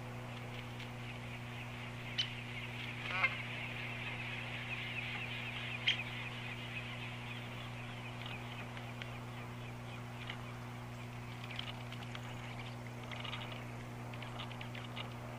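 A flock of birds calling, with many short calls overlapping throughout and one louder call about three seconds in, over a steady low hum. Two sharp clicks come near 2 and 6 seconds.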